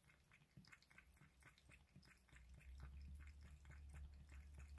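Domestic cat lapping water from a glass mug: faint, quick wet clicks of the tongue, about four a second. A low rumble comes in about halfway.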